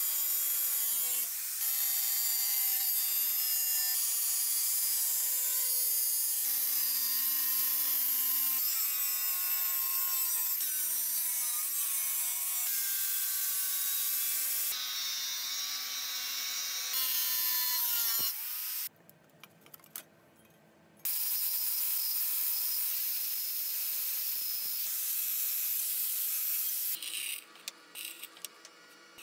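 Bosch angle grinder with a thin cut-off disc cutting through stainless-steel sheet: a steady high whine with a harsh hiss. About two-thirds of the way through it winds down and stops, then starts again a couple of seconds later. Near the end come a few seconds of short, broken-up sounds as a drill press drills the sheet.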